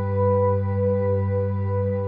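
Ambient background music: a soft, held chord of steady sustained tones.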